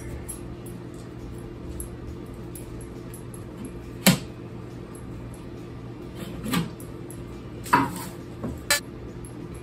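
Hard plastic parts being handled: four short knocks and clunks as a humidifier's top and its corrugated hose are moved about and set down on a wooden table, the loudest about four seconds in. A steady low hum runs underneath.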